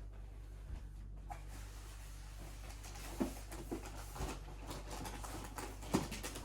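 Scattered soft knocks and rustles over a steady low hum, the sharpest knocks about three seconds in and again near six seconds.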